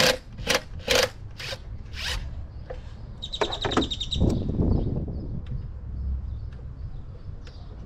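Tool work in a car's engine bay: five short, sharp bursts about half a second apart, then a quick run of high clicks a little past three seconds in.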